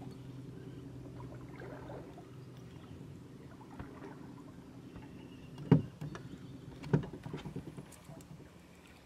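Boat motor running with a steady low hum that fades away near the end, and two sharp knocks on the boat about a second apart past the middle.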